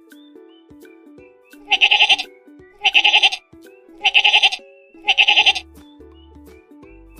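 Four loud, wavering bleats from a goat-or-sheep-type farm animal, each about half a second long and about a second apart, over light background music with a repeating melody.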